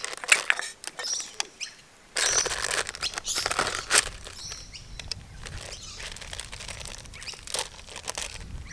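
Plastic bag of brownie mix crinkling and rustling as it is handled and cut open with a knife: irregular crackles and scrapes, loudest between about two and four seconds in.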